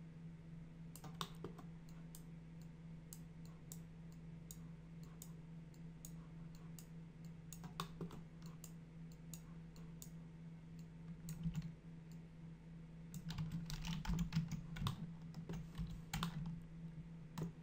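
Computer keyboard keys clicking now and then, with a quicker run of keystrokes near the end, over a steady low hum.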